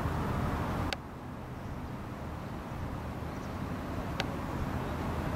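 Outdoor background noise with a steady low rumble. It drops suddenly about a second in, and two sharp clicks come, one at that drop and one near the end.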